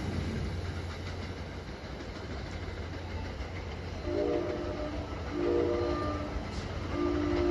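NJ Transit Comet V push-pull train rolling away, its wheel and track rumble fading. From about four seconds in, the train's multi-chime horn sounds in the distance: two blasts, then a third longer one.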